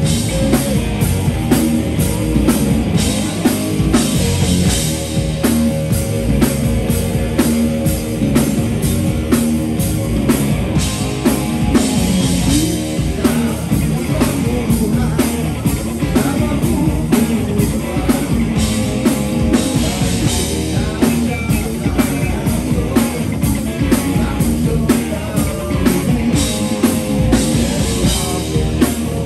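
A rock band playing live: electric guitar, bass guitar and drum kit over a steady beat, with a singer's voice.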